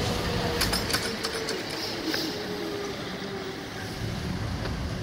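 Railroad level crossing with its barriers down: a steady tone that shifts about two seconds in and fades soon after, with a run of sharp clicks about a second in, over low road and wind noise.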